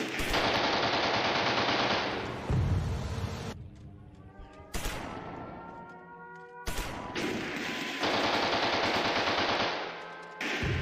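Machine-gun fire sound effects from a TV battle scene: dense rapid firing, breaking off in the middle, where a single sharp crack is followed by a brief rising whine, then firing again.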